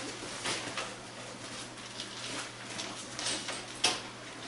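Handling noise from a soft fabric-and-vinyl cab enclosure panel being fitted onto a UTV roll cage: scattered short rustles and scrapes, with one sharper click near the end. A faint steady low hum runs underneath.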